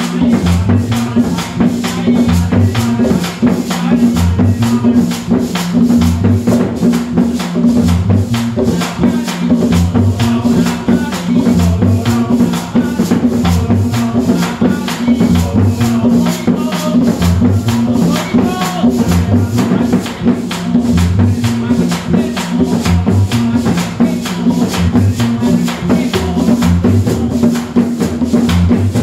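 Live band rehearsing an Afro-Colombian dance groove: an electric bass plays a repeating low riff over drums, with a rattling hand-percussion part keeping a fast, even pulse.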